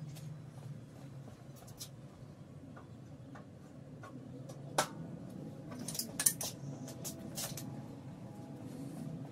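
Scattered light clicks and clinks of small hard objects being handled, over a low steady hum; the sharpest clinks come about five and six seconds in.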